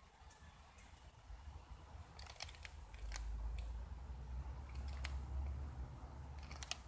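Faint outdoor ambience: a low rumble, heavier for about three seconds midway, with a few sharp light clicks scattered through it and a quick cluster near the end.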